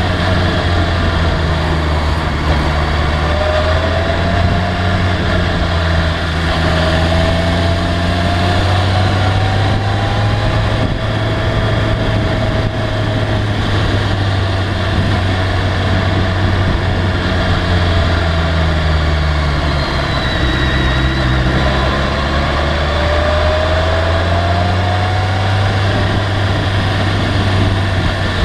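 BMW K1300R inline-four motorcycle engine running on the move, its pitch rising slowly several times as the throttle opens, under a steady rush of wind and road noise.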